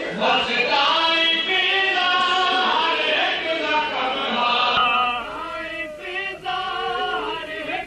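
Voices chanting a Punjabi noha, a Shia mourning lament for Imam Hasan, in long drawn-out melodic lines. About five seconds in, the sound thins to fewer, wavering voice lines.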